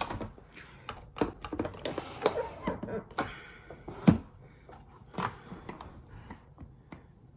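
Scattered light clicks and taps of makeup tools being handled, with one louder knock about four seconds in.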